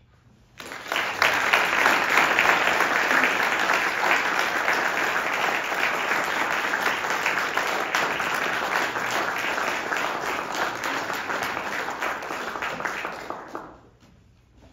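Audience applauding: a dense, steady clapping that breaks out about half a second in and dies away about a second before the end.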